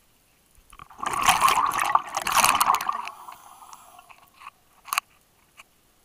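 Scuba regulator exhaust bubbles from the diver's exhalation, rushing past the camera in two loud surges about a second each, then fading. A few sharp clicks follow near the end.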